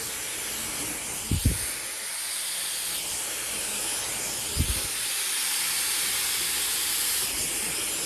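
Handheld hair dryer blowing steadily through a narrow concentrator nozzle while a section of hair is pulled through a round brush, detangling it with heat. Two soft low thumps about one and a half and four and a half seconds in.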